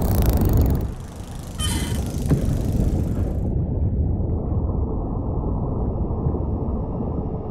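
Muffled underwater water rumble. A brief fizz of bubbles and splashing comes about a second and a half in.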